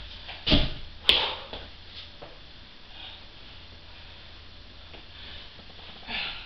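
Two sharp knocks about half a second apart as a person lets go of a home ab-exercise machine and moves away from it, then only faint soft sounds of movement.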